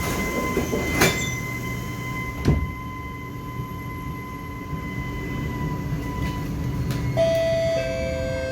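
Kawasaki Nippon Sharyo C751B metro train doors closing: the door warning tone sounds, then the doors shut with knocks about one and two and a half seconds in. Over a steady low rumble, a set of steady electric tones starts about seven seconds in as the train begins to pull away.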